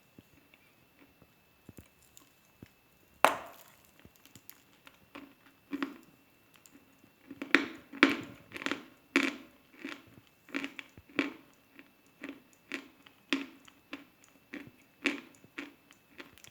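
A piece of Khrapovsky chalk is bitten with one sharp crack about three seconds in. From about halfway through it is chewed in a steady run of crunches, roughly one and a half a second.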